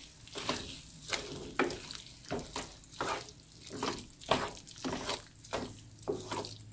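A wooden spoon stirring Brussels sprouts through a cream sauce in a nonstick skillet: a wet scrape and slosh about twice a second over a faint sizzle of the simmering pan.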